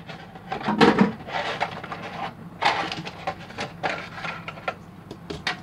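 Stiff white plastic packaging tray creaking and clicking as toy pieces are pulled out of it, in a run of irregular sharp clicks and short rustles that are loudest about a second in.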